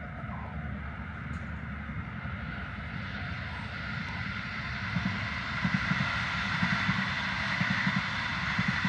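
Double-deck electric passenger train passing at a distance, a steady rumble and rail noise that grows louder about halfway through, with a run of regular wheel knocks over the track joints.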